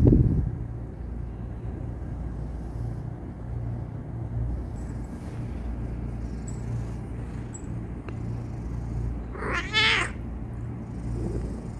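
Persian cat giving one short, complaining meow near the end, the 'cursing' it does when stopped from kneading, over a low steady rumble. A dull thump sounds right at the start.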